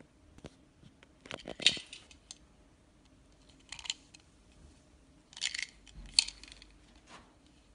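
Small plastic-and-metal clicks and clatters of a hotel key card and its holder being handled at a room door. They come in several short bursts, the sharpest about a second and a half in and about six seconds in.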